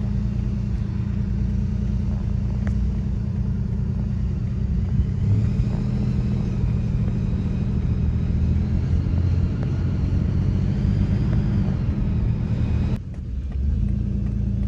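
Steady low rumble of a vehicle travelling on a road: engine and road noise. It breaks off abruptly about two seconds before the end, then resumes.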